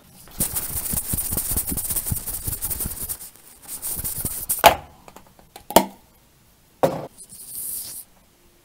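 Aerosol can of liquid grease lubricant spraying with a sputtering hiss for about four seconds, then a few sharp knocks as the can and parts are handled, and a second short spray near the end.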